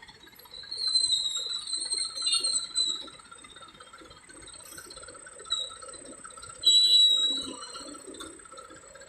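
A high-pitched, wavering squeal for about two seconds, then again briefly about seven seconds in, over a low background rumble.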